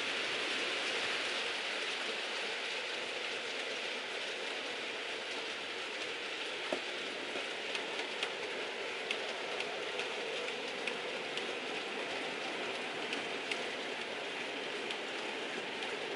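Model railway goods train running on the layout: a steady hissing rumble of the wheels and motor on the track, with light ticks of the wheels over the rails from about halfway through.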